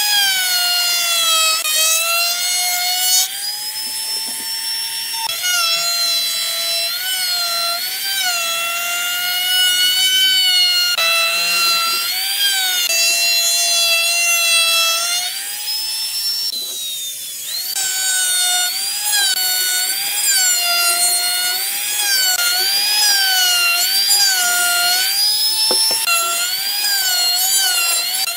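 Handheld electric trim router running with a high whine as it routes the edges of wooden pieces. Its pitch keeps dipping and rising as the bit cuts into the wood.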